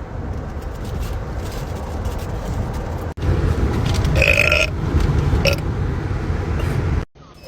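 A person burping: a long, low, croaky burp, a brief break about three seconds in, then a second, louder one that cuts off suddenly near the end.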